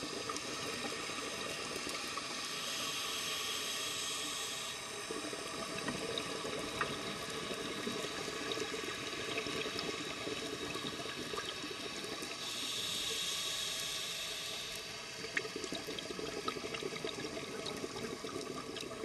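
Scuba regulator breathing heard underwater: two long hisses about ten seconds apart, with bubbling water in between, over a constant fine crackle.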